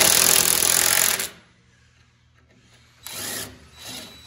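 Cordless power driver spinning a bolt into the threaded lower hole of a Triumph TR6's front brake caliper mounting bracket, running for about a second and a half and then stopping abruptly. Two softer, brief noises follow near the end.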